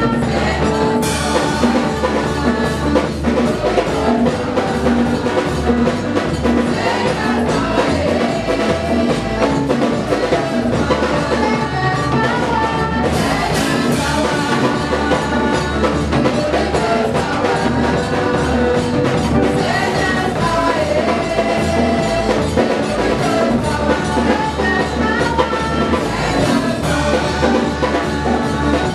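Live gospel praise music: women singing into microphones over a drum kit and a band, played loud through a PA system with a steady beat.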